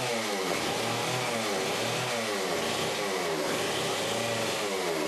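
A motor running steadily, its pitch rising and falling in a regular cycle a little more than once a second.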